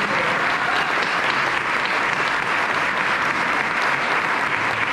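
A roomful of people applauding, steady and even.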